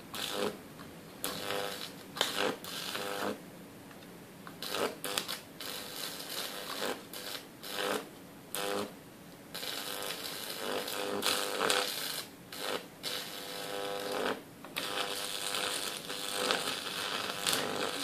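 High-voltage arc from a microwave oven transformer's roughly 2000-volt output burning into a microwave display circuit board: a crackling buzz. It comes in short stop-start bursts for about the first nine seconds, then runs on longer and steadier as the board catches fire.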